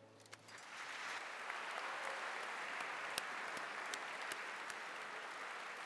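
Audience applauding after a string orchestra's piece ends, the clapping swelling in within the first second and then holding steady.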